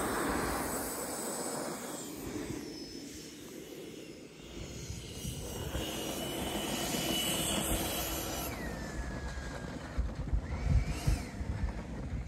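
Electric ducted-fan RC jet (Freewing F-18) running at low power on the ground, a thin high whine that drops in pitch about eight seconds in. Wind gusts on the microphone near the end.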